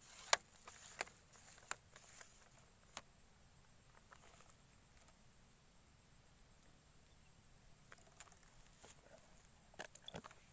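Handling noise from a long telescopic fishing pole being gripped and swung out: scattered sharp clicks and short rustles, several in the first three seconds and a small cluster near the end, over a faint steady background.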